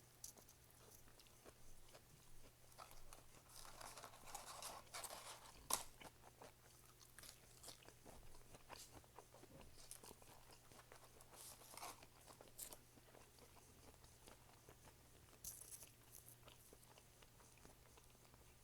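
A person chewing food, with faint, irregular crunches and mouth clicks over a low steady hum.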